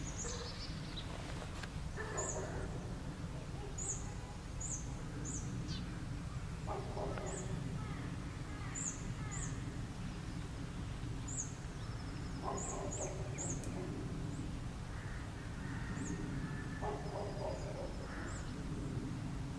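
Wild birds calling in the open: many short, high chirps repeat throughout, and four harsher, lower calls of about a second each come at intervals of four to five seconds, over a steady low rumble.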